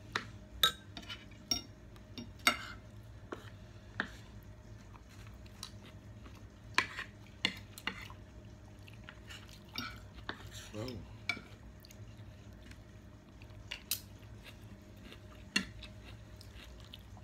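Metal spoon and fork clinking and scraping against plates during a meal: scattered sharp clicks at irregular intervals over a steady low hum.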